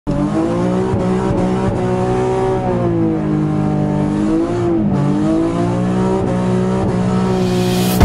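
Nissan 350Z's V6 engine and exhaust heard from inside the cabin while driving, the engine note rising and falling with the throttle: climbing over the first few seconds, dipping about halfway through, then climbing again.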